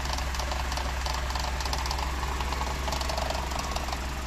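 Mercedes-Benz W124 petrol engine, converted to electronic fuel injection, idling steadily at low revs just after a cold morning start. The low, slightly shaky idle is typical of the cold engine, and the vibration eases as it warms up.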